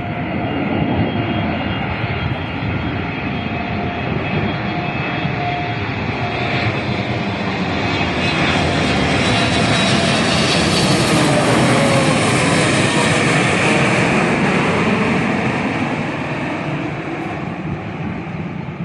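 Boeing 777 freighter's two GE90 turbofans on landing approach. The jet noise builds to a peak with a high-pitched whine as the plane passes overhead about ten seconds in, the engine tone dropping in pitch, then eases off as it flies away.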